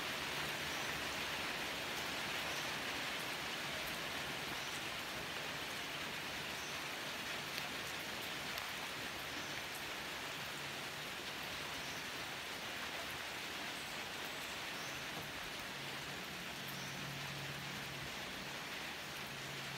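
Steady, even hiss of rainforest background sound, with a faint low hum that comes and goes and grows stronger near the end.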